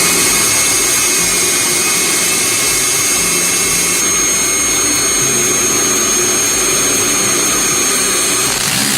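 A vacuum cleaner runs steadily with a high whine while an electric drill bores a 5 mm hole into the wall. The whine changes its pitch about four seconds in.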